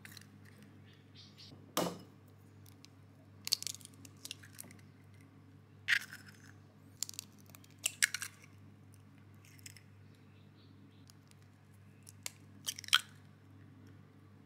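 Chicken eggshells being cracked and pulled apart by hand over a bowl: a sharp knock about two seconds in, then several short bursts of shell crackling, over a steady low hum.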